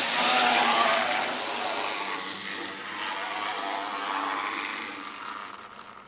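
N gauge model tank locomotive running on the track: the whir of its small electric motor and the rattle of its wheels on the rails, fading away over the last second or so.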